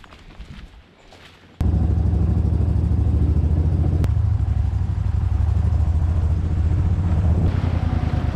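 Small boat's motor running steadily under way: a loud, low, even engine note with a fast regular pulse. It starts abruptly about a second and a half in; before that there is only faint rustling.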